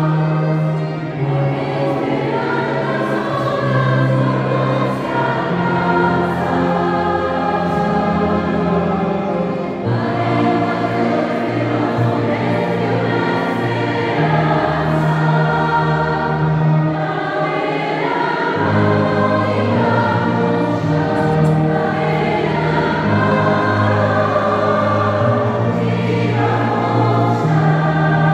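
Large mixed choir singing a song in several parts, with sustained low bass notes and an instrumental ensemble accompanying.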